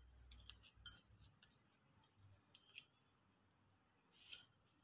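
Near silence, broken by a few faint light clicks and ticks of a spoon against a ceramic plate as salt and black pepper go onto the sandwich stuffing.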